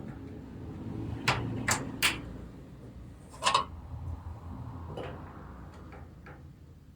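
Sharp plastic clicks and knocks, about five spread over several seconds, from RAM modules being swapped in a desktop PC's memory slots.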